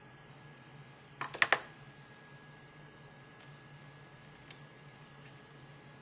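Three sharp clicks in quick succession about a second in, then a single lighter click later, over a faint steady high whine and low hum.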